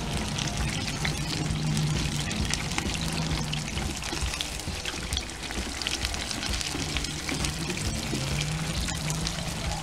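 Battered chicken nuggets deep-frying in hot oil: a steady sizzle full of fine crackling pops. Low background music with held notes runs underneath.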